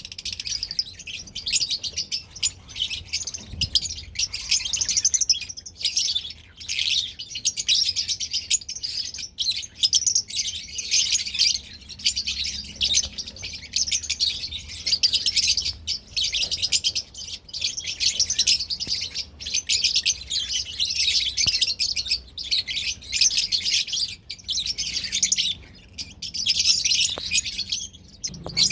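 Small parrots chirping and chattering in dense, rapid, overlapping high chirps without a break, several birds at once.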